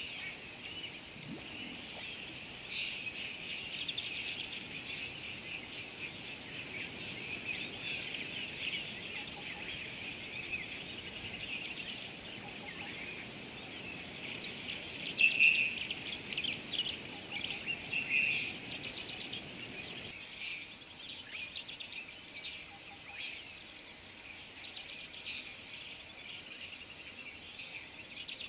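Steady high-pitched insect trill, like crickets, under many small bird chirps, with a few louder bird calls about halfway through.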